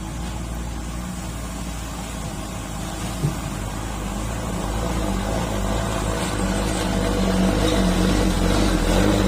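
Heavy tronton truck's diesel engine running steadily and growing louder through the second half. There is one short click about three seconds in.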